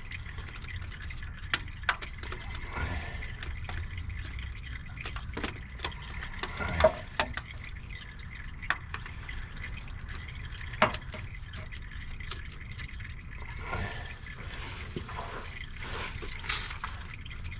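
Used diesel engine oil from a Duramax running and dripping into a drain pan, with scattered sharp clicks and knocks from a wrench being worked on the stuck oil filter.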